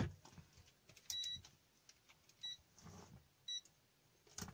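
Digital multimeter giving three short high-pitched beeps, the first a little longer than the others, as it is set up to check the power supply's outputs for shorts. Faint clicks and rustles of cables being handled.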